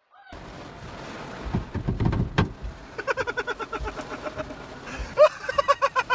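Heard from inside a car: a steady rush of water over the windshield with a few low thumps, then a high-pitched voice in quick repeated cries about halfway through and again near the end.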